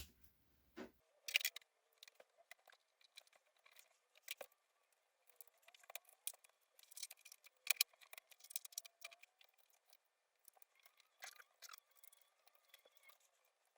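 Faint, irregular clicks and taps of small plastic and metal laptop parts being handled and fitted together during reassembly.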